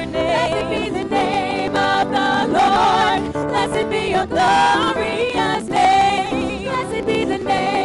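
Several women singing a gospel praise song together into microphones, with instrumental accompaniment.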